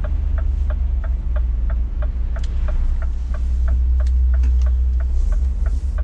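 Turn-signal indicator ticking evenly in the cab of a Scania S500 truck, about three ticks a second, as the truck turns off the road. The diesel engine's low rumble runs underneath.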